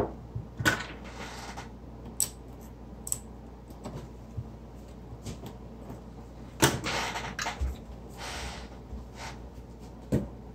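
Hands handling a TV's aluminium LED backlight strip on a silicone work mat: scattered clicks and two spells of scraping and rustling, the longer one about two-thirds of the way in, then a sharp knock near the end.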